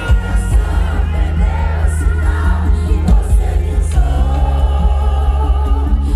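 Live pop music over a concert PA: a heavy, steady bass beat with singing over it, the bass growing fuller about four seconds in.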